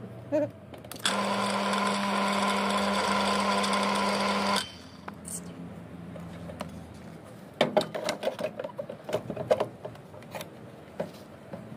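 Small electric surface water pump switches on suddenly about a second in, runs steadily with a motor hum for about three and a half seconds, then cuts off abruptly and winds down. A few seconds later comes a run of clicks and knocks from hands working on the pump's controller and fittings.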